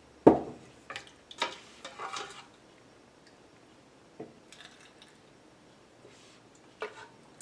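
Kitchenware being handled: one sharp clunk, then a quick run of light metal and glass clinks, with a couple of faint ticks and one more clink near the end.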